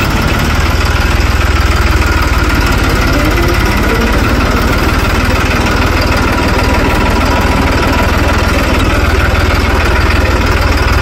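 New Holland 3630 tractor's three-cylinder diesel engine running steadily with a deep, even hum, heard from the driver's seat.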